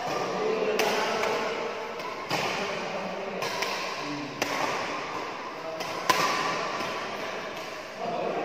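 Badminton rally in a reverberant hall: sharp smacks of rackets hitting the shuttlecock every second or two, with the loudest hit about six seconds in, over echoing hall noise.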